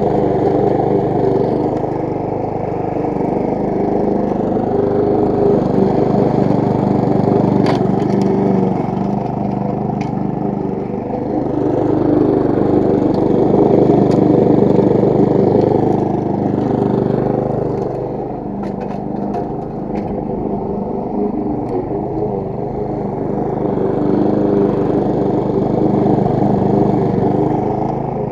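Briggs & Stratton single-cylinder four-stroke engine on a petrol walk-behind rotary lawn mower running at steady mowing speed while cutting grass. Its loudness rises and falls slowly as the mower is pushed and turned.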